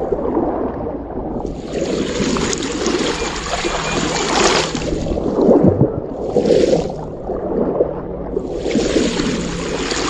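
Shallow creek water splashing and churning as people wade through it, swelling in several louder spells over a steady rush of water.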